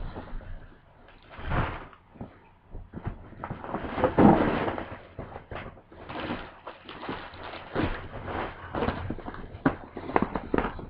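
A shopping bag and its contents being fetched and handled: irregular rustling with scattered knocks and clatter, loudest about four seconds in.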